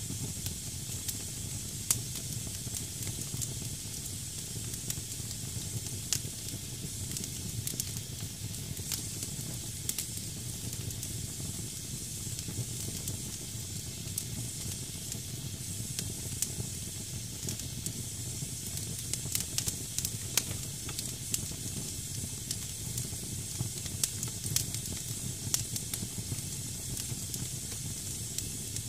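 Damp firewood burning in a fireplace: a steady hiss of moisture steaming out of the wood over a low rumble of flame, with scattered crackles and pops, one sharp pop about two seconds in and several more in the second half.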